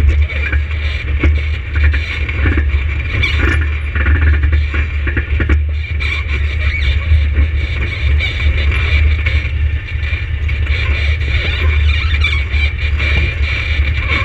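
ATV engine running with a steady low drone, and a continuous high-pitched squeal over it.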